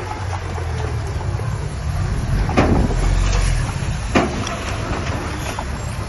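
Heavy diesel earthmoving machinery running steadily with a low drone. Two sharp knocks about a second and a half apart stand out near the middle.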